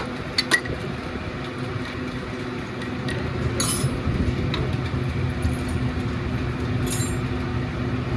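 Scattered light metallic clinks of tools and engine parts being handled, over a steady mechanical hum, with two short high hisses about three and a half and seven seconds in.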